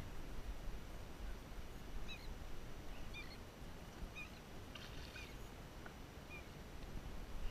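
Steady low wind-and-water rumble around a drifting jet ski, with a brief splash about five seconds in from a small hooked shark thrashing at the surface, and a few short high chirps scattered through.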